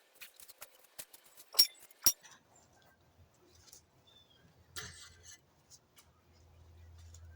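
Light metallic clinks and taps from tools and parts being handled, with two sharp knocks about one and a half and two seconds in, then a brief rustle near five seconds in.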